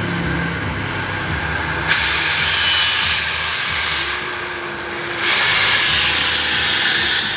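Angle grinder running with a steady high whine, twice biting into a metal ring with a loud grinding hiss lasting about two seconds each time. Near the end the whine falls in pitch as the grinder begins to spin down.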